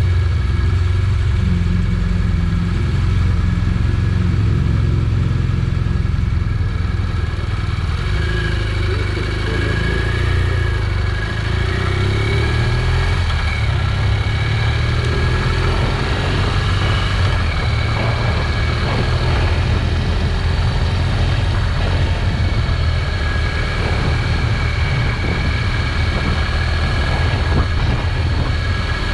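Motorcycle engine running at low road speed, a steady low rumble whose pitch rises and falls as the rider opens and closes the throttle.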